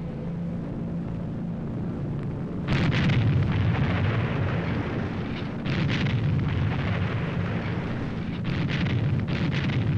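Explosions over a steady low rumble: one blast about three seconds in, another near six seconds, and a quick run of several blasts near the end. They are the sound of bombing from warplanes.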